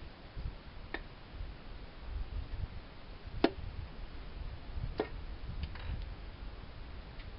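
A handful of sharp clicks and knocks from hand tools and engine parts being handled during an engine teardown, the loudest about three and a half seconds in, over a low rumble.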